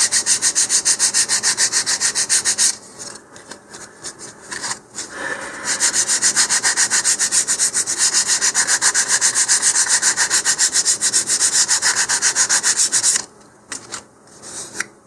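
150-grit sandpaper on a sanding block rubbing back and forth along a model rocket fin's rounded edge, about four to five quick strokes a second. The strokes stop for a few seconds with only light handling noises, then resume and stop again near the end. This is the final smoothing pass that takes off the raised fibres.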